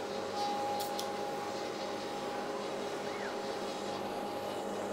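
Rikon 25-010H planer-thicknesser running in jointer mode: a steady motor and cutterhead hum with a constant whine, as a rough pine board is fed across the jointer tables.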